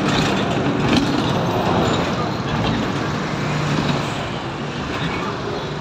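City bus running under way, heard from inside the cabin: a steady engine hum with road noise.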